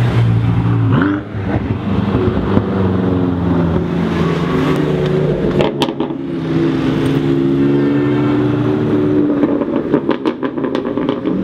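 BMW M5 F10 and M4 F82 on Akrapovic exhausts driving past and pulling away, the engine note rising about a second in and then holding steady. Sharp exhaust pops around six seconds in, and a quick run of sharp cracks near the end.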